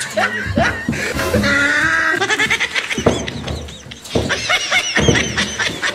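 Laughter.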